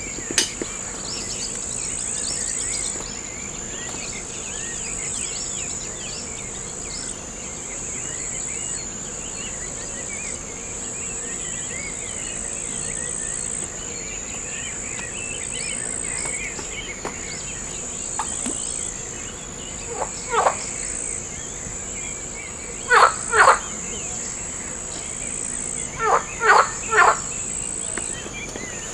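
Insects shrilling in a steady high-pitched drone that pauses and resumes in stretches, with faint bird chirps throughout. Loud short pitched animal calls break in near the end: once, then twice, then three in quick succession.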